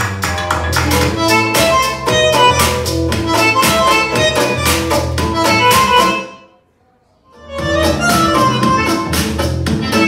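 Instrumental music with a steady beat and heavy bass played at maximum volume on a JBL Charge 5 portable Bluetooth speaker, fading out about six seconds in. After about a second of near silence the music starts again, now from an Anker Soundcore Motion+ speaker.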